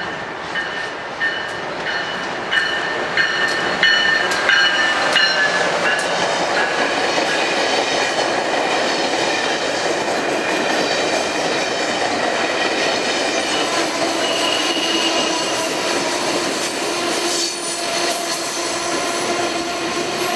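Amtrak Acela Express trainset going by: a run of evenly spaced clicks and a few steady high tones in the first seconds, then the coaches rushing past with continuous rail noise.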